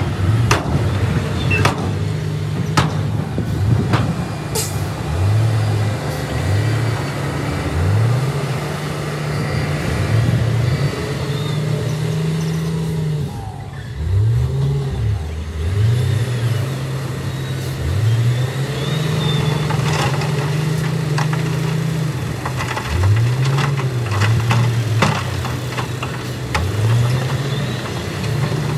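Heavy diesel engines of a dump truck and a wheel loader revving up and settling again, over and over. Rock clatters and knocks as it slides out of a tipping dump truck bed during the first few seconds.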